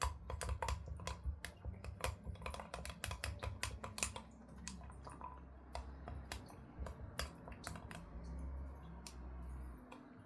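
Rapid, irregular light clicks and taps, thick in the first few seconds and thinning out later, over a low hum.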